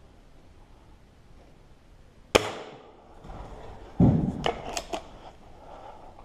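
A single air rifle shot, a sharp crack with a short ringing tail, about two seconds in. About a second and a half later comes a heavy thud and then a few sharp knocks and clatters.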